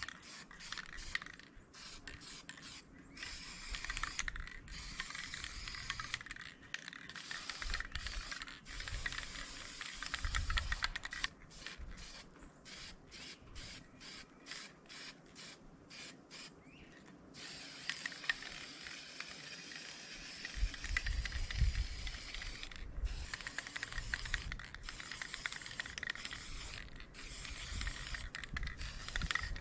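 Paint spraying onto parts in short hissing bursts, quick and repeated about halfway through, then in longer passes. Wind gusts rumble on the microphone underneath, strongest about a third of the way in and again about two-thirds in.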